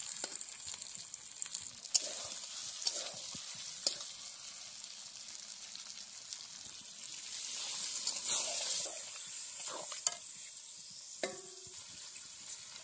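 Chicken and potato curry sizzling in a kadai while a metal spatula scrapes and clicks against the pan. About eight seconds in, the hiss swells as liquid is poured into the hot pan.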